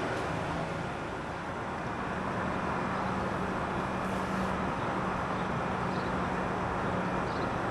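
Strong sandstorm wind blowing steadily and buffeting the microphone, with a faint low hum underneath.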